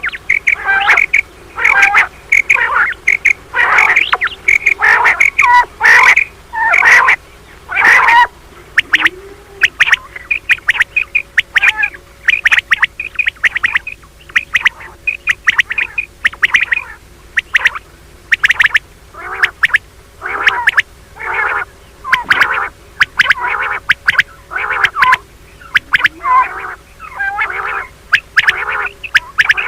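Female common quail giving her mating call: short, sharp notes repeated rapidly, several a second, in bursts with brief pauses between them.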